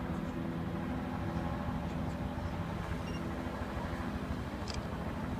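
Steady low rumble of idling and passing vehicle engines in street traffic, with a car driving through the intersection in the second half.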